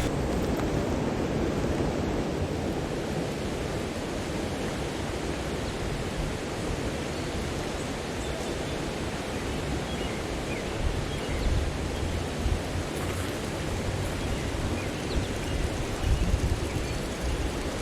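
Steady rushing noise with low buffeting thumps that grow stronger near the end.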